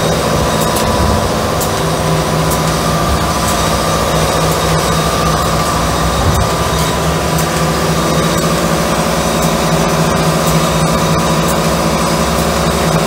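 Steady electric hum and buzz of arc welding as an exhaust Y-pipe is welded to twin tailpipe tips, with a few faint clicks.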